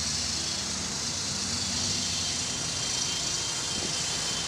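Steady city street traffic noise: an even wash of passing vehicles with no single event standing out.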